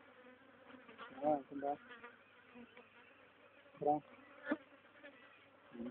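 Insects buzzing around the foaming tree sap, with a few louder passes close by that rise and fall in pitch, about a second in and again near four seconds.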